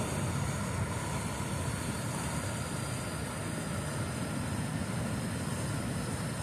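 Steady low rushing of a fast river flowing below a dam's outflow.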